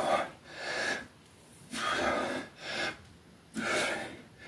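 A man breathing hard in time with his reps, sharp breaths in and out one after another with short pauses between them. This is the effort of bending a steel power-spring bar.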